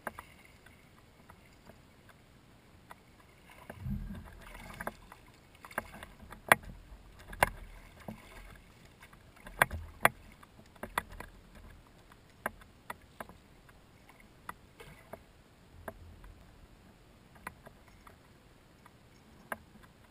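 Irregular sharp clicks and knocks from a spinning rod and reel and a plastic kayak hull as a bass is fought and landed, with a longer, fuller burst of noise about four seconds in.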